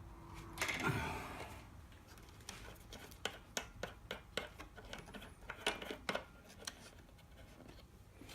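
Clamps and jig parts being handled and tightened on a drill-press belt sander jig: scattered clicks and small knocks, with a longer scrape about a second in.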